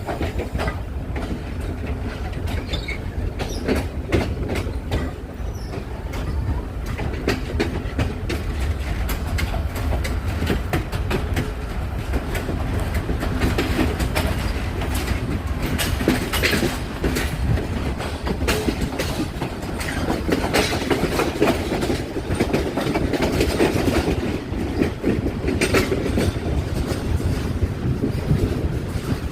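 Train running on rails: a steady low rumble with repeated wheel clicks over the rail joints.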